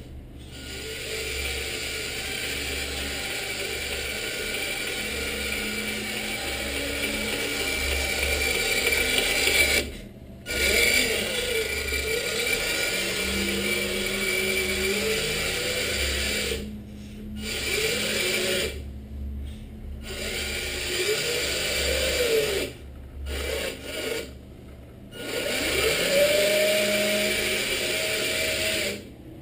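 1/14-scale RC Scania 6x4 truck's electric motor and gearbox whining as it drives, the pitch rising and falling as it speeds up and slows down. The sound drops out briefly several times as the truck stops.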